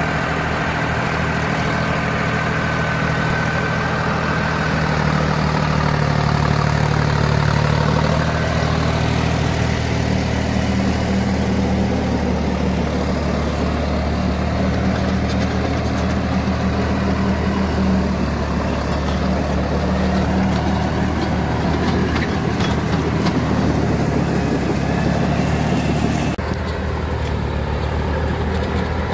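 Deutz-Fahr Agrolux tractor's diesel engine running steadily under load, driving a rotary tiller that churns soil and chopped banana stalks. The sound changes abruptly near the end.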